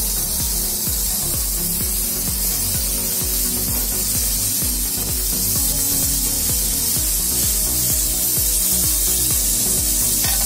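Shrimp satay skewers sizzling steadily in butter on a hot ridged grill pan.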